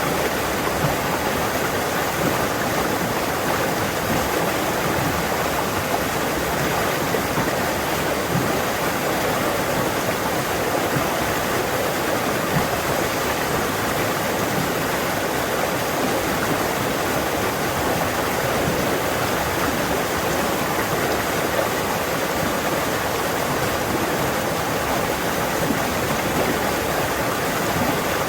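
Fast forest stream rushing over stones, a loud, steady splashing and rushing of water with no pauses.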